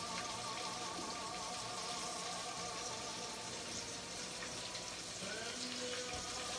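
Halibut cheeks flash-frying in a hot pan: a steady sizzling hiss.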